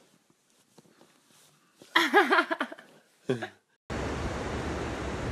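A person's voice, loud and wavering rapidly in pitch, then a short falling vocal sound. About four seconds in, an abrupt cut to steady ocean surf with wind on the microphone.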